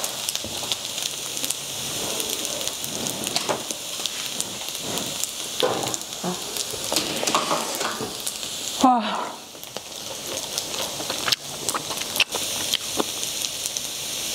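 Chadol fried rice (rice with thinly sliced beef brisket) sizzling and crackling in a hot stone pan on a tabletop burner, a steady hiss with many small pops as the rice crusts into nurungji on the bottom.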